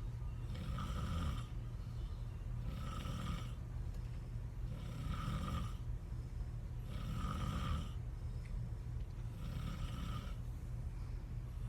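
A person snoring in a regular rhythm, about one snore every two seconds, over a steady low hum.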